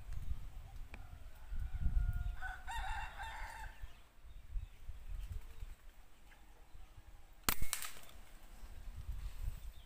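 A rooster crows once, about two and a half seconds in. Near the end comes a single sharp crack of an air rifle shot, the loudest sound, with a smaller crack just after it, over low rumbling noise.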